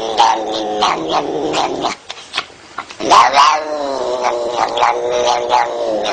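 Domestic cat caterwauling: a long, wavering yowl that breaks off about two seconds in. After a brief pause a second yowl rises in pitch, then falls and carries on.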